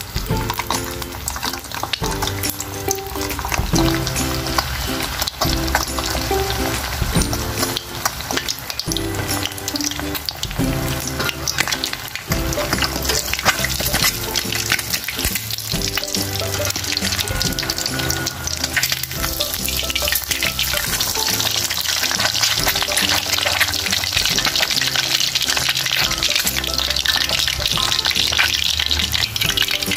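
Food frying in hot oil in a pan, a steady crackling sizzle with utensil stirring, growing louder about two-thirds of the way through. Background music plays underneath.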